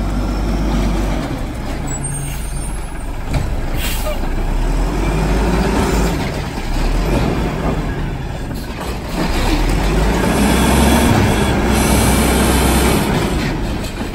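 Mack refuse truck's engine running as it pulls up to the curb and stops, with hisses from its air brakes.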